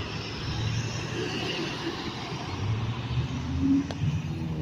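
Heavy truck engine running as it rolls past, a steady low rumble mixed with road traffic noise.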